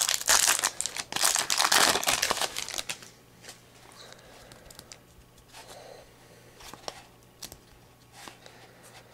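Foil trading-card pack being torn open and crinkled, loud for about the first three seconds. After that come quieter scattered clicks and rustles as the cards are slid out and handled.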